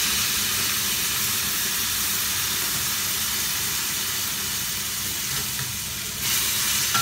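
Wok of roasted duck and bitter gourd boiling hard on a gas flame, with hot water just added: a steady sizzling hiss. A metal spatula starts stirring near the end.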